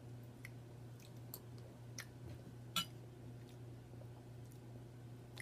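A person chewing food, with a few soft mouth clicks and smacks scattered through, the clearest nearly three seconds in, over a steady low hum.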